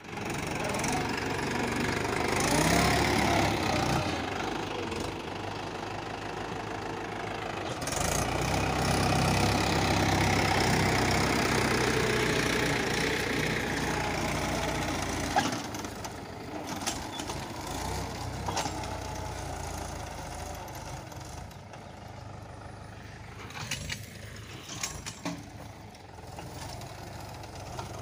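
Mahindra 585 XP Plus tractor's four-cylinder diesel engine running under load, pulling a seed drill through wet soil. It runs close by, loudest in the first half, then grows quieter as the tractor moves away, with a single sharp tap about halfway through.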